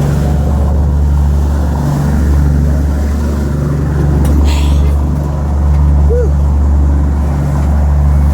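Fishing boat's engine running steadily under way, a low drone with a slow, even pulsing, over wind and water noise.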